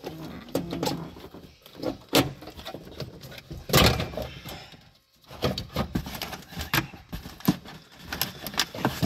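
Irregular clicks, knocks and rattles of hard plastic car interior parts being handled and worked loose, with one louder knock about four seconds in.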